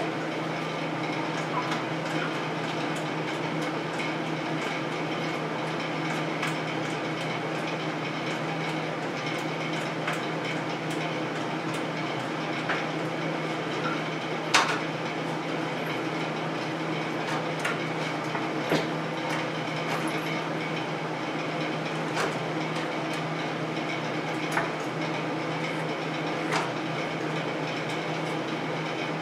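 Scattered sharp metallic clicks and knocks as a Nissan R200B differential is jacked up into the car's frame mounts, the loudest about halfway through, over a steady low hum.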